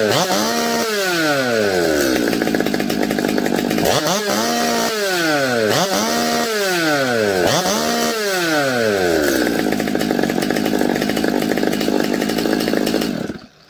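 Stihl MS 200T top-handle chainsaw's two-stroke engine idling and being blipped up to high revs about eight times in quick succession, dropping back to a steady idle each time. It then holds idle for a few seconds and stops shortly before the end. Fitted with new crankshaft seals, it now keeps running after revving instead of cutting out.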